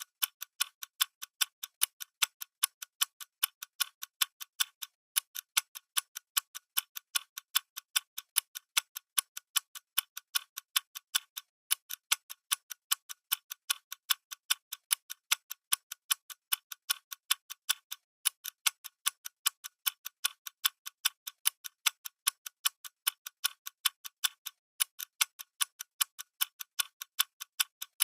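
Clock ticking steadily, a rapid even train of sharp clicks that alternate louder and softer.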